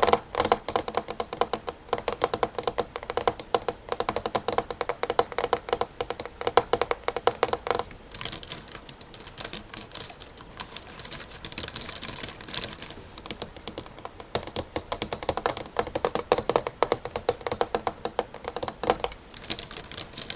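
Fingers tapping rapidly on a laptop, a dense run of clicks like typing. The tone of the taps changes about eight seconds in, turning brighter and thinner, and changes again a few seconds later.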